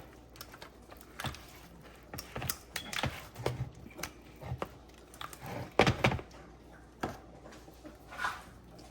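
Spoon stirring shredded chicken and cream of chicken soup in a mixing bowl: irregular clicks and short scrapes of the utensil against the bowl, with a louder clatter about six seconds in.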